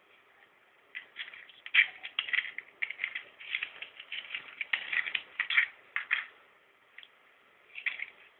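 Irregular crackling and rustling at a bundle of red dynamite sticks tied with cord, in quick clusters of small crackles that thin out to a single click and one last short burst near the end.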